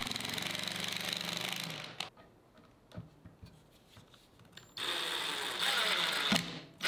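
Cordless impact driver hammering wood screws home, in two bursts of rapid rattling with a steady whine: one in the first two seconds and one from about five seconds to six and a half, with a pause between.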